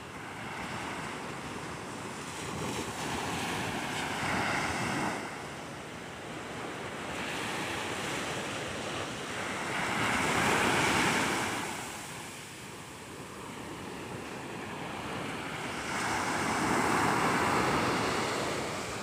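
Sea waves in strong surf breaking and washing up a sandy beach. Three louder breakers swell and fade: a few seconds in, about halfway, and near the end.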